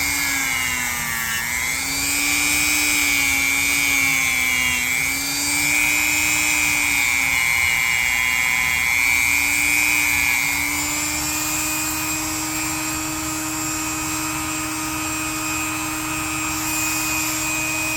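Small power tool with a polishing pad running, buffing the metal bolsters of a pocketknife. The motor whine wavers in pitch for the first ten seconds or so, then holds a steady pitch.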